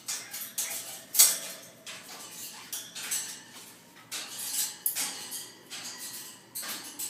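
African grey parrot making a run of short, harsh, noisy calls, one every half second to second, the needy sounds of a hormonal bird in breeding condition.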